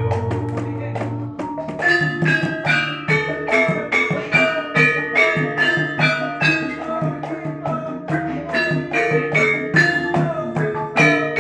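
Javanese gamelan ensemble playing: bronze metallophones and kettle gongs struck in a quick, even rhythm with kendhang drums. A low ringing tone sounds in the first second, there is a brief lull about a second and a half in, and then the full ensemble goes on.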